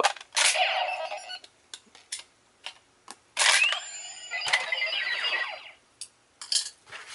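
Power Rangers Megaforce deluxe Gosei Morpher toy playing its electronic sound effects: two bursts of sweeping, gliding tones, with short plastic clicks from the toy being handled in between.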